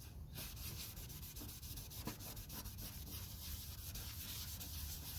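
A cloth rubbing back and forth on a car's paint and headlight, wiping off dried headlight restorer compound: a quiet, dry, scratchy rubbing in quick strokes.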